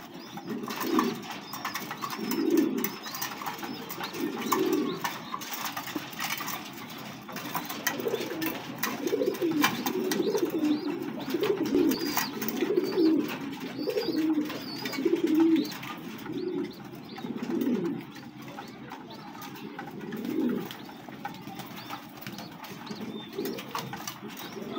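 Domestic pigeons cooing, low-pitched coo phrases repeating about once a second, busiest in the middle and thinning out near the end.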